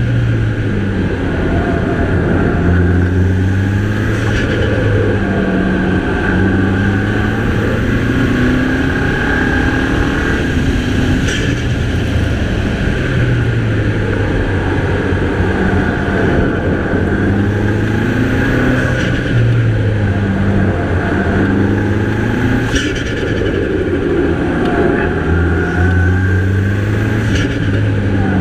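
Mini Cooper's turbocharged 2.0 L four-cylinder engine under hard driving, its note rising and falling over and over as it accelerates and backs off, with a steady high whine from the turbo above it and a few brief sharp noises.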